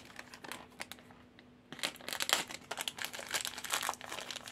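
Crinkly purple wrapper crackling as a small toy figure is unwrapped by hand: a few faint rustles, then dense crinkling from about two seconds in.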